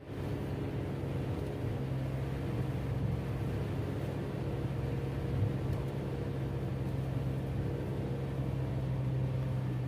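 Car driving, heard from inside the cabin: a steady low engine and road hum, with one short bump about halfway through.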